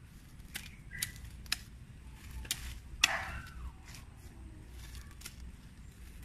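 Small sickle hacking and scraping at weeds and soil: a string of irregular sharp ticks and snaps, the loudest about three seconds in, followed by a short falling squeak.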